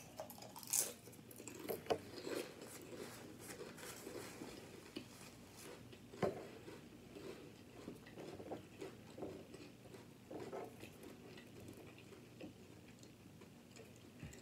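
A person chewing potato chips close to the microphone: crisp crunching, with a few sharper crunches in the first couple of seconds and one about six seconds in.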